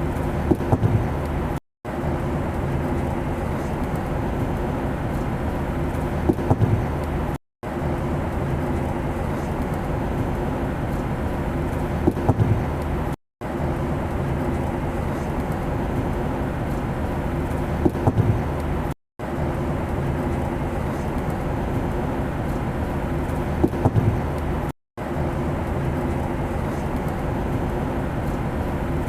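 Steady airplane engine drone. A clip of about six seconds loops over and over, each repeat broken by a brief dropout to silence, with a few clicks just before each break.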